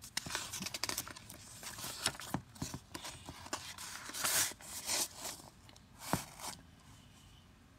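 Paper pages of a picture book being turned by hand, giving a string of short, irregular rustles and scrapes that die away near the end.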